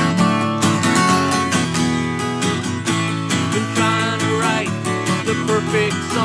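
Steel-string acoustic guitar strummed in a steady rhythm, ringing chords as a song introduction.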